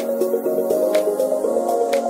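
Background music: a soft melodic line of held notes, with a light click about once a second.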